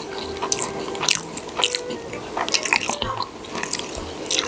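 Close-up wet chewing and lip-smacking of a man eating pork adobo with rice, with many short clicks from his mouth.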